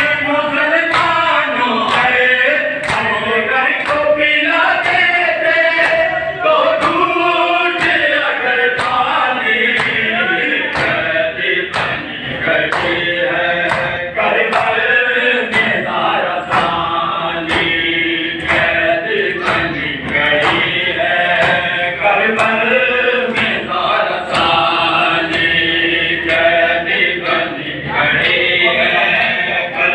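A group of men chanting a Shia noha in unison, with rhythmic chest-beating (matam) keeping a steady beat of about one stroke a second.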